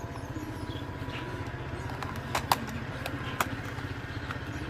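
Plastic toy motorbike parts clicking as a wheel is pushed onto the frame: a few sharp clicks, two close together about halfway through and one more a second later, over a steady low hum.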